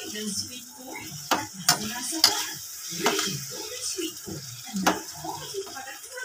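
Chopped tomatoes sizzling in hot oil in a frying pan as a spatula stirs and scrapes them. Several sharp clacks come from the spatula striking the pan.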